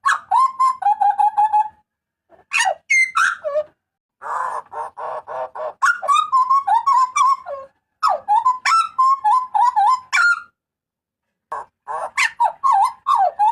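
Hooded butcherbird (jagal papua) giving its loud calls in about five phrases with short pauses between them. Each phrase mixes a rapid harsh chatter with clear, warbling whistled notes.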